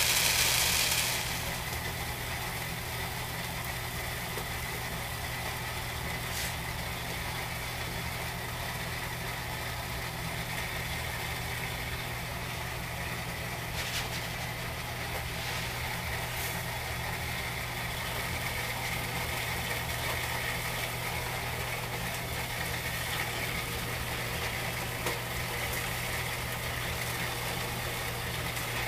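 Crushed malt grain pouring into a plastic bowl on a kitchen scale, a rushing hiss that stops about a second in. After that a steady low electrical hum runs on, with a few faint clicks of handling.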